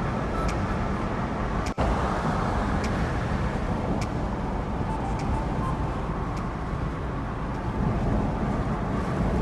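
Steady car noise heard from inside the cabin: engine and road rumble while driving, with a brief dropout about two seconds in.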